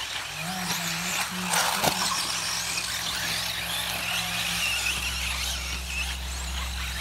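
Several electric 1/8-scale off-road RC buggies racing, their brushless motors whining and wavering up and down in pitch as they accelerate and brake. There is a sharp knock about two seconds in, and a steady low hum grows louder from about five seconds in.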